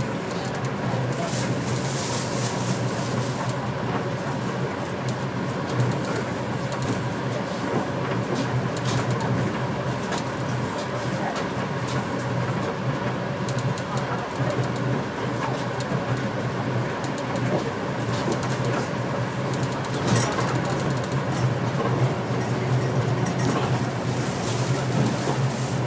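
Cabin noise of a rubber-tyred guideway train in motion: a steady low hum under the rolling noise, with more hiss around the start and again near the end.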